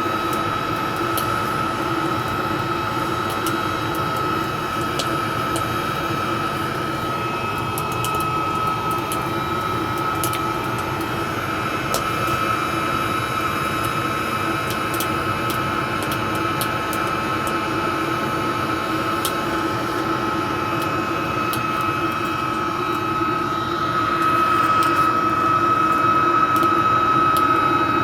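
Homemade metal-melting furnace running: a steady rushing noise with a constant high whine and a lower hum, a few faint ticks over it, getting a little louder near the end.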